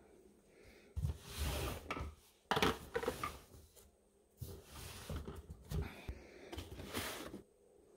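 Cardboard boxes sliding and scraping on cabinet shelves as they are pushed into place, with light knocks from the things inside them. It comes in three spells of scratchy rustling, the last and longest starting about halfway through.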